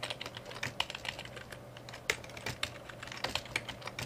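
Typing on a computer keyboard: a quick, irregular run of keystroke clicks as a line of code is edited.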